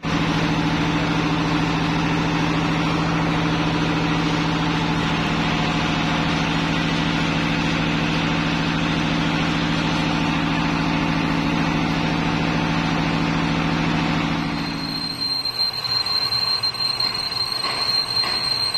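Metal lathe turning a steel pin, the tool cutting with a steady machine drone and a dense cutting noise. About fifteen seconds in, the low drone drops away and a steady high-pitched whine sounds over a rougher, uneven cutting noise.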